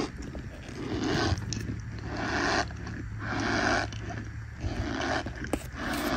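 Fine white powder squeezed and pressed by hand, giving a squeaky crunch over and over, about once a second.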